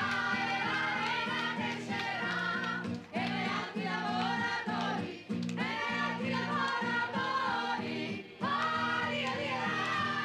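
Several voices singing a song in parts over a steady low accompaniment. There are short breaks between phrases about three, five and eight seconds in.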